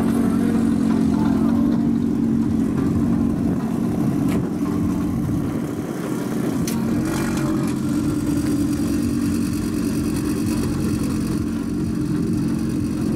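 Audi TT RS's turbocharged five-cylinder engine idling steadily.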